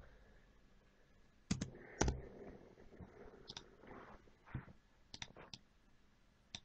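Quiet computer mouse clicks and key presses while working in CAD software: scattered single clicks, with a quick run of three a little after five seconds in.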